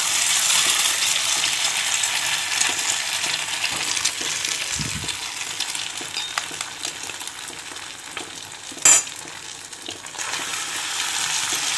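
Egg frying in hot oil in a small pan: a steady sizzle that eases off gradually. There is one sharp knock about nine seconds in, and the sizzle grows louder again after it.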